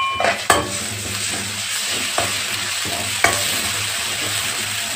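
Sliced onions and freshly added ginger-garlic paste sizzling in hot oil in an aluminium kadai, stirred with a metal ladle. The sizzle is steady, with a few sharp knocks of the ladle against the pan.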